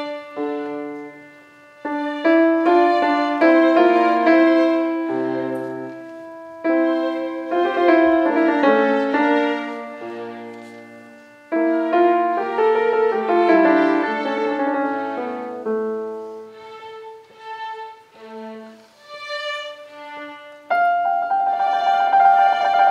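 Steinway grand piano and a string ensemble playing a slow Baroque movement. Struck piano notes ring and fade, and about 21 s in the music swells into a louder, sustained passage.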